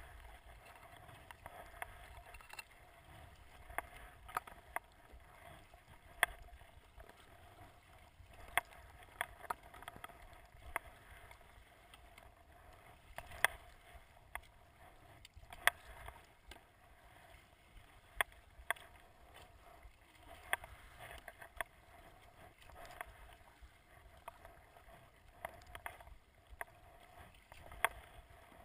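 Kayak paddling on choppy sea: a low steady wash of water and wind against the hull, broken by frequent short, sharp clicks and splashes from the paddle blades and drips striking the boat.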